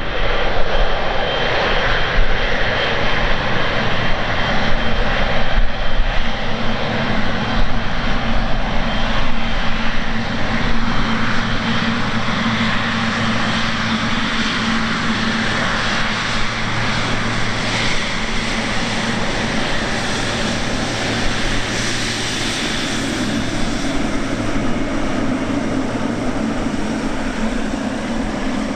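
Air China Boeing 777-300's twin jet engines running at low taxi power as the airliner rolls past: a steady jet rumble with a low hum, and a faint high whine in the first half.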